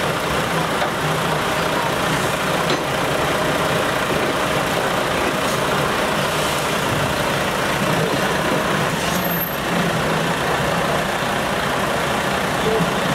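Diesel engines of heavy truck tractor units running at idle, a steady continuous drone.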